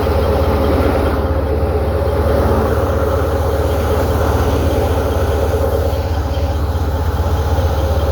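A tractor engine driving a wheat thresher, running steadily at a constant speed with a deep hum and a busy mechanical churn.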